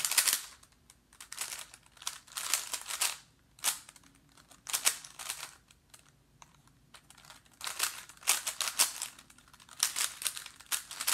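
A cheap plastic 3x3 Rubik's cube being turned by hand: bursts of quick clicking, clacking layer turns with short pauses between, as pieces are worked into the second layer.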